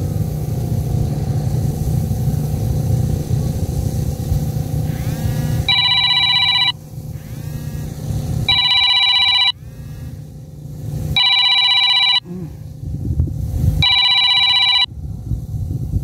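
An electronic phone ringtone: four steady one-second rings, each a chord of high electronic tones, repeating about every three seconds and starting about six seconds in. Before the first ring there is a low, even rumbling noise.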